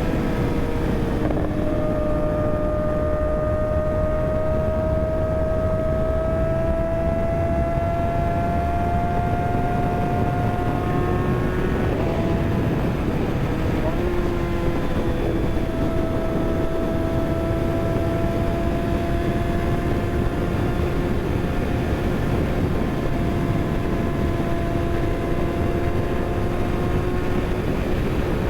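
Kawasaki ZX-6R sport bike's inline-four engine running under way, its note climbing slowly, breaking twice about halfway through and then holding steady, under heavy wind rush on the rider's microphone.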